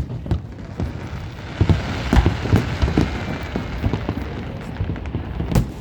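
Fireworks bursting in quick succession, many deep booms, with a crackling sizzle that swells through the middle of the stretch as crackling shells go off.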